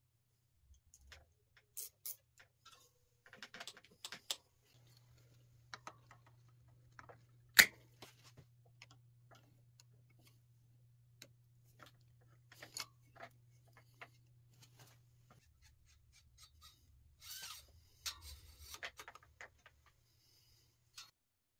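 Small clicks and metallic ticks of hand work on a bicycle's front caliper brake, the brake cable being fitted and gripped with pliers at the caliper, with one sharp click about seven and a half seconds in.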